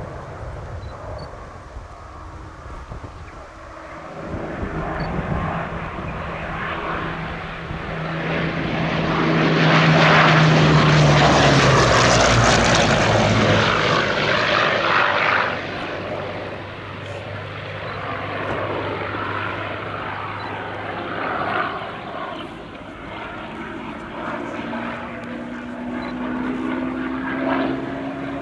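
Hawker Sea Hurricane's Rolls-Royce Merlin V12 engine in a fly-by: it grows louder, peaks as the fighter passes about halfway through with its note dropping in pitch, then fades, and its pitch climbs again near the end as it comes round.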